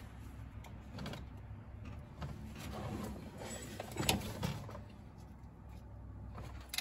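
Pliers and hand tools clicking and scraping on the steering linkage while working a stuck cotter pin out of the castle nut, with a few light metal taps, the sharpest about four seconds in.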